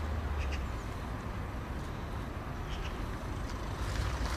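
Outdoor background noise: a steady low rumble with a few faint, short high chirps.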